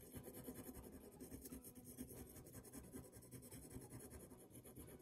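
Black fine-line pen scribbling on paper: a faint, rapid run of short back-and-forth scratching strokes, shading in by scribbling.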